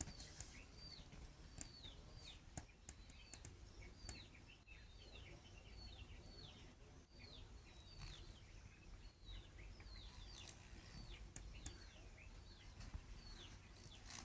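Birds chirping faintly: a run of short, down-slurred chirps, one to a few a second, over a low rumble.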